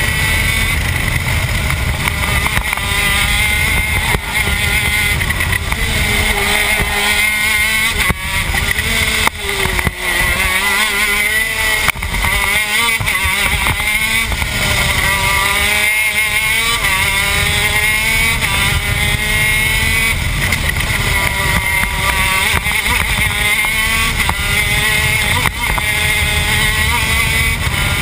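TM K9c 125cc two-stroke shifter kart engine heard onboard at racing speed. It revs up and down over and over, its pitch climbing and dropping as the driver works through the gears, with a few brief dips where the engine note falls away.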